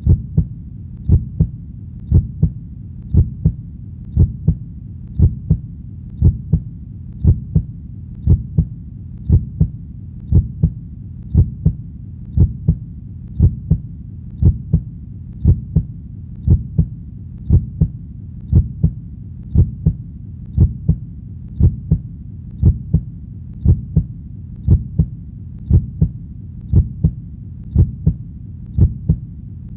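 Heartbeat in a steady lub-dub rhythm, about one double beat a second, deep and low over a faint steady rumble between beats.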